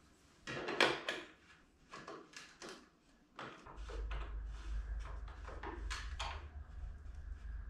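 Knocks and clicks of a grey PLA 3D-printed bracket being handled and wiggled on a tractor's steel roll bar to test how rigid it is. The loudest knock comes about a second in, and a steady low hum starts about halfway through.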